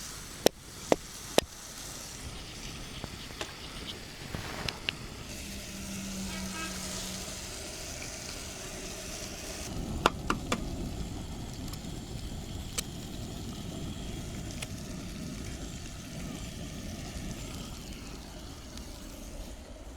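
Food sizzling in a frying pan over a camp fire, a steady hiss. Sharp taps, as of a utensil on the pan, come three times in the first second and a half and again about ten seconds in.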